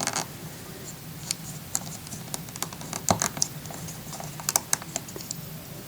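LEGO pieces being pressed together and handled: scattered small plastic clicks and taps, thickest about three seconds in and again a little after four and a half seconds.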